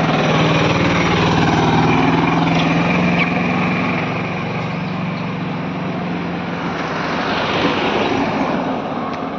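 A road vehicle's engine running close by, a steady hum that fades out after about six seconds. Ongoing road and traffic noise swells again near the end.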